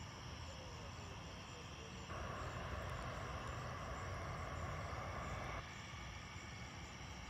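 Distant airport noise: a steady low rumble, with a hiss that comes in suddenly about two seconds in and cuts off just as suddenly three and a half seconds later.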